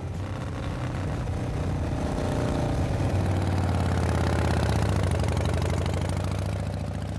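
A motor vehicle's engine running with a steady low hum, growing louder to a peak about midway and then fading away.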